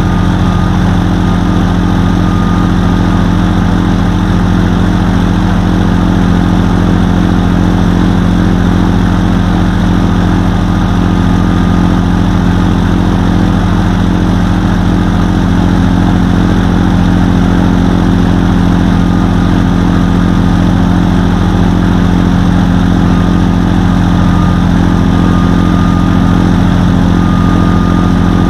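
Quicksilver Sport 2S ultralight's engine and propeller idling steadily.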